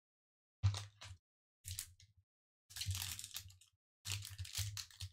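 Foil booster-pack wrapper crinkling and tearing as it is pulled open by hand, in four short bursts. The later bursts are longer, and each comes with a dull handling thump.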